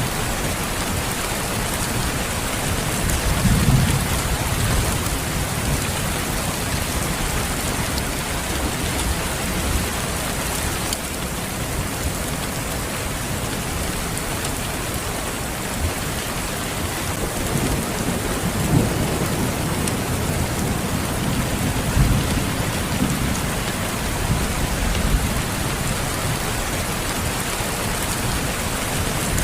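Steady rain falling, with low rumbles of thunder swelling up several times.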